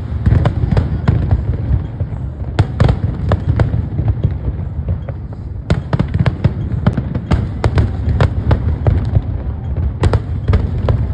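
A fireworks display: many sharp cracks from bursting shells in quick succession over a continuous heavy rumble of booms, starting suddenly at the beginning.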